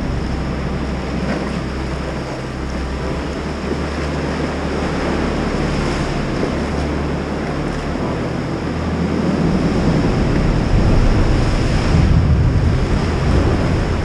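Sea swell washing and surging against the rocks of a sea cave entrance, with wind rumbling on the microphone. The surge grows louder about nine seconds in.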